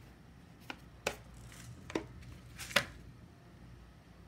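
Packaged food items and a plastic meal cup being handled and set down on a table: four short knocks over about two seconds, the last one the loudest.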